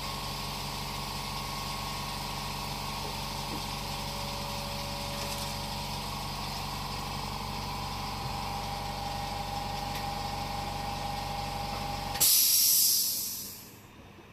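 A motor starts with a click and runs steadily with an even hum for about twelve seconds, then cuts off with a loud burst of hissing air that fades out over a second or so.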